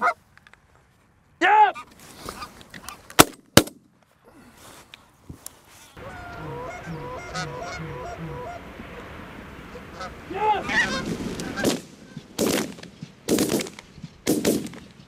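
Geese honking: a single loud honk early on, then many faint honks at once in the middle, and several loud honks near the end as a flock flies in overhead. Two sharp clicks about three seconds in are the loudest sounds.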